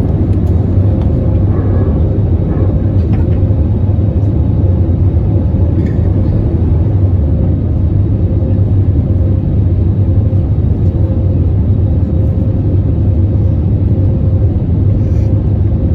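Airbus A320neo jet engines and airflow, a loud steady roar heard inside the passenger cabin, with a faint steady tone above it.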